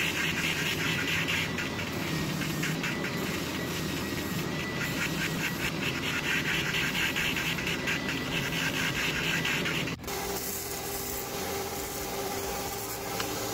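Oscillating spindle sander running, a whirring noise with a fast flutter, as a rosewood bridge blank is sanded against its drum. About ten seconds in it cuts off and a vertical belt sander runs instead, a steadier sound with a lower tone, as the rosewood piece is sanded on its belt.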